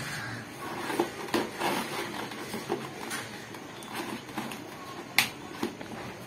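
Scissors cutting through a cardboard box and its packing tape: irregular snips, scrapes and crackles of card, with one sharper snap about five seconds in.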